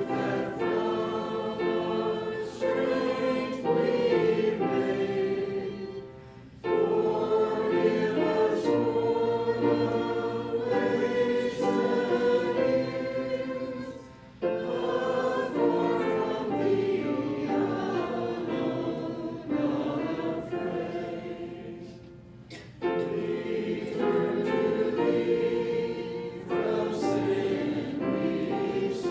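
Congregation singing a hymn together, line by line in phrases of about eight seconds with brief breaths between them.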